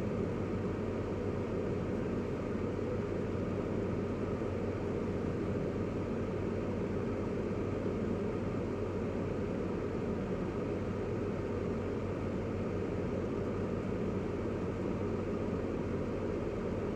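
Steady low hum of a car's engine idling, heard from inside the cabin.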